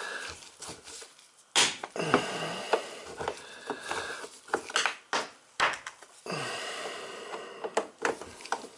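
Socket wrench turning a dishwasher's front leveling leg: irregular metal clicks and scraping, with short pauses between strokes.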